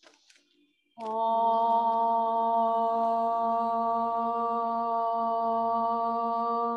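A woman's voice chanting a mantra, held as one long, steady note that begins about a second in after a deep inhalation.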